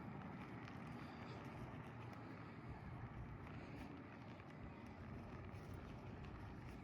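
Faint, steady outdoor background noise with a few light clicks.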